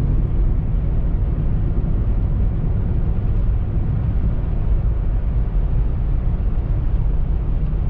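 Steady low rumble of road and engine noise heard inside the cabin of a 2007 Jeep Commander as it drives along the road.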